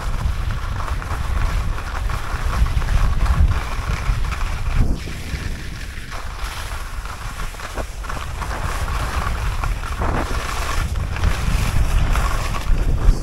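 Wind buffeting the microphone: a steady, gusting low rumble with a thin hiss over it.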